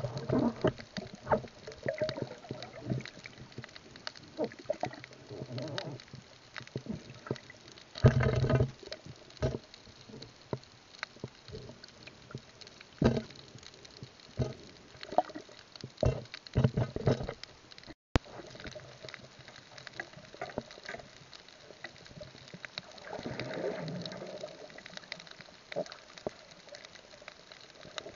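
Underwater sound picked up by a diver's camera: water noise with many scattered clicks and knocks, and a few louder bumps and rustles.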